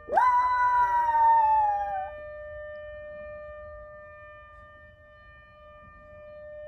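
A poodle howls once, rising sharply and then sliding slowly down for about two seconds, over a siren holding a steady wail. The siren carries on alone after the howl stops.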